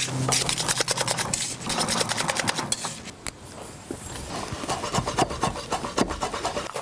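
A wire whisk beating mashed potato in a metal saucepan: rapid, rhythmic scraping strokes for about three seconds. Then scattered lighter knocks, with a knife chopping on a wooden board near the end.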